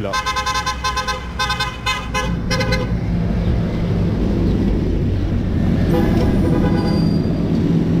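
A vehicle horn tooting in a quick run of about six short blasts over the first three seconds, then the steady low engine rumble of road traffic as a minibus and a bus drive past.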